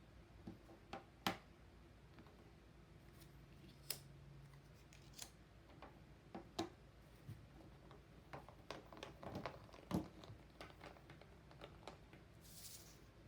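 Faint, irregular clicks and taps of play cookies being handled and set down one by one, with a soft rustle near the end.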